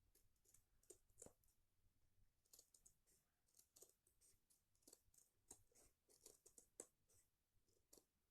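Scissors snipping through cloth: a string of faint, short, irregular clicks of the blades closing.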